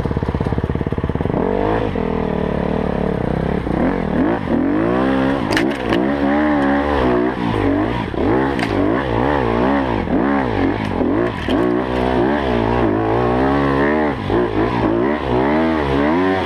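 Enduro dirt bike engine heard up close from on board, revving up and falling back over and over, about once a second, as the throttle is worked on a rough woodland trail, with a few sharp knocks from the bike over the ground.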